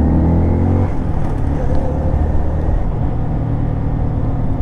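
Motorcycle engine running under way, its pitch rising slightly through the first second, then holding steady.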